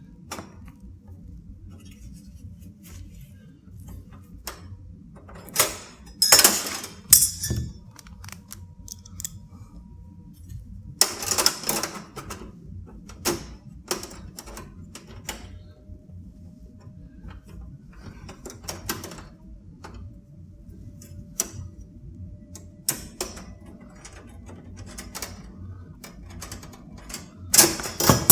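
Light clicks and taps of computer case parts and screws being handled and fitted into a PC case, with louder brief clatters about six and eleven seconds in and again at the end, over a low steady hum.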